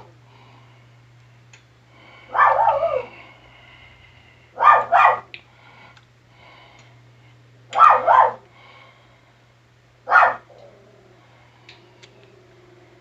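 A dog barking, about five separate barks spread a few seconds apart, one at a time or in a quick pair.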